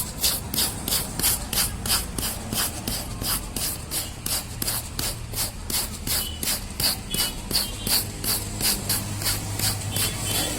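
Quick, regular scraping strokes on tyre rubber, about three or four a second, as the area around a puncture is worked by hand during the repair. A steady low hum runs underneath.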